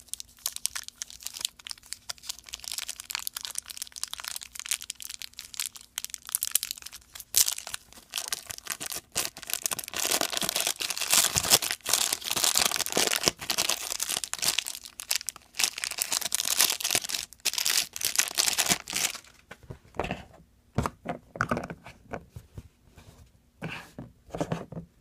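Toy packaging being crinkled and torn open by hand, a dense crackling that is heaviest in the middle and thins to scattered clicks and rustles near the end.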